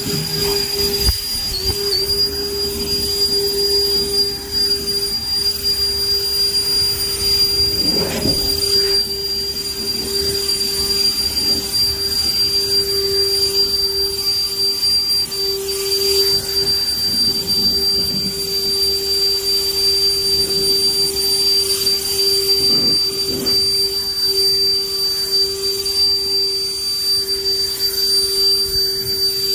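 An electric motor running steadily with a constant high-pitched whine over a lower hum.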